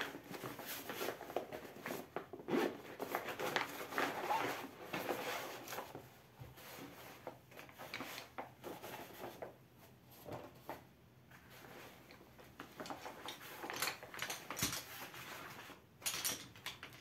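The nylon carry bag of a folding camping chair and the chair's folded fabric rustle and scrape as the chair is handled and pulled out of the bag. Near the end come a few light clicks from the aluminium poles as they are laid on the table.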